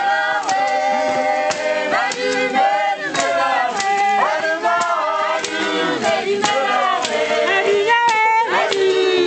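A choir singing in harmony, several voices together, over sharp percussive hits about twice a second.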